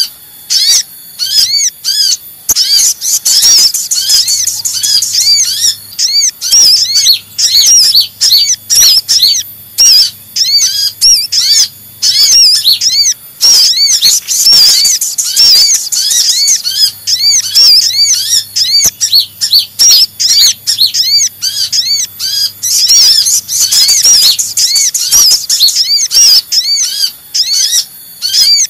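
Excited chattering of kolibri ninja (van Hasselt's sunbird) mixed with calls of the sogok ontong (little spiderhunter), a dense, fast stream of short, high, arched chirps and sharp ticks. It is a looped lure recording of agitated calls, played to draw sunbirds, spiderhunters and other small birds in.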